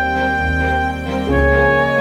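Slow instrumental background music: sustained chords over a steady bass, moving to a new chord about a second in.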